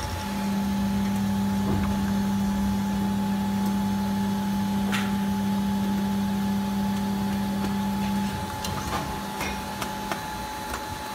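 Injection moulding machine running with a steady low hum that stops about eight seconds in. A few light clicks come through, one near the middle and a couple near the end.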